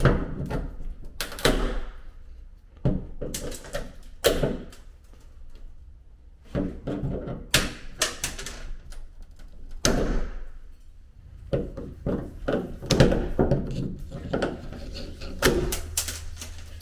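Pliers clicking, knocking and scraping against a shower faucet's metal handle stem, in irregular bursts of sharp clicks and short scrapes.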